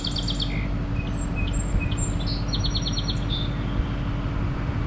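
A songbird trilling twice, a quick run of repeated high notes at the start and again about three seconds in, with a few short high chirps between, over steady low outdoor background noise.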